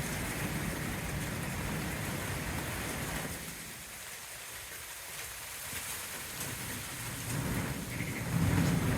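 Steady rain falling, with a low rumble of thunder building near the end.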